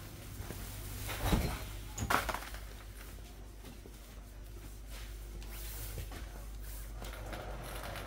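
Grocery shop ambience: a steady low hum, with two brief louder noises about a second and two seconds in.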